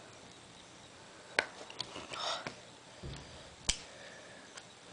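Small sharp clicks, about five over a couple of seconds, with a brief scrape, as the plastic tip is worked off the end of a metal bobby pin.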